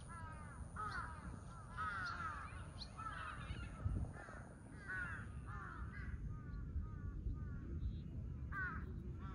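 Crows cawing over and over, several birds calling at once with short, overlapping caws, over a low steady rumble.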